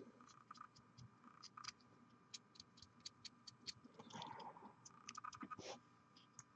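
Near silence: faint scattered small clicks and light scratching from small-scale handwork at a painting desk.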